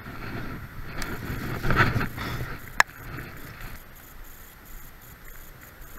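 Rain and wind noise on a chest-mounted action camera's microphone, louder with rustling bursts for the first few seconds, then quieter. One sharp click about three seconds in.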